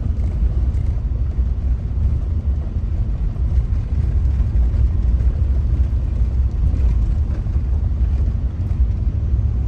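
Car driving steadily along the road: a constant low rumble of engine and tyre noise.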